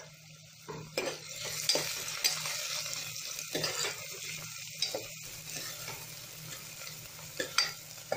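Chopped onions sizzling in hot oil in a pressure cooker as a steel spoon stirs them, scraping and clinking against the pot every second or so. The sizzle picks up about a second in.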